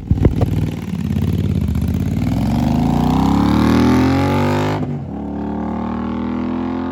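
Royal Enfield Continental GT 650's 648 cc parallel-twin engine through Offtrail Moto Hyperstroke S1 Pro slip-on exhausts with no dB killer: two sharp crackles at the start, then the revs climb steadily for about four seconds before dropping abruptly to a steadier, lower note.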